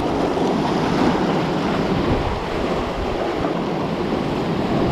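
Sea waves washing against shore rocks, a steady rushing noise, with wind buffeting the microphone.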